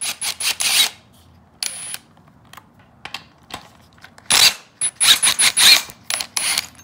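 Hand socket ratchet on a 12 mm socket clicking in quick strokes as an engine mount bolt is backed out. There is one short run of clicks at the start and a longer, faster run from a little past the middle to near the end.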